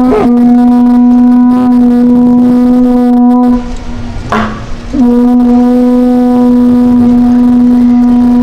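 Horagai (conch-shell trumpet) blown in two long, steady blasts on a single pitch, with a break of about a second and a half near the middle.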